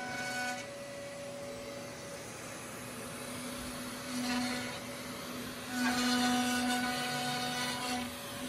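Onefinity Elite Foreman CNC router spindle running steadily as its bit carves into a cedar board. It is a constant whine with an even pitch, growing louder briefly about four seconds in and again from about six to eight seconds in as the cut takes more load.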